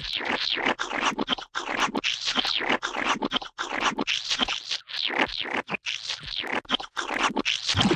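Gooey splat sound effects: a quick, irregular run of short squelches and splats, several a second, broken by a few brief gaps.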